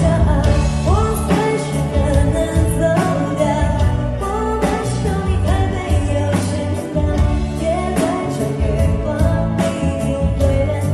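Background music: a song with a singing voice over instrumental accompaniment.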